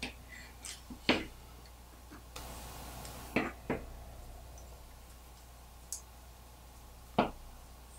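Scattered sharp clicks and taps of carbon-fibre quadcopter frame parts and small screws being handled and fitted together by hand and with a screwdriver, the loudest about a second in. A short hiss comes about two and a half seconds in.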